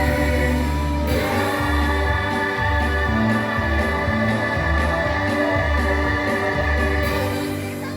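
Song music from a children's stage musical, with held chords, a bass line and voices singing, playing out the end of a number.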